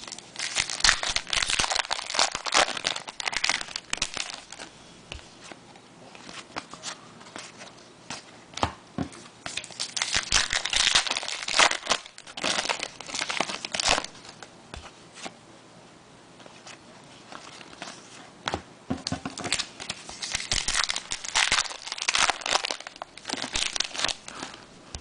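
Trading card pack wrappers crinkling and tearing as packs are opened by hand, in three spells of crackling with quieter handling between.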